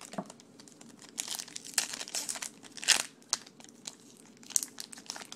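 A baseball card pack's wrapper crinkling and tearing as it is opened by hand: a run of irregular crackles, loudest about three seconds in.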